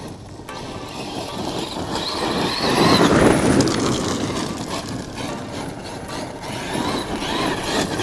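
Traxxas X-Maxx 8S RC monster truck's brushless electric motor whining up and down in pitch as it accelerates, with its tyres spraying and crunching gravel. The sound swells and is loudest about three seconds in, as the truck passes close.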